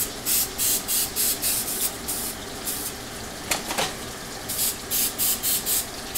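Aerosol coconut oil cooking spray hissing in quick short bursts as it coats an empty crock pot insert: one run of bursts, a brief knock about three and a half seconds in, then a second run of bursts.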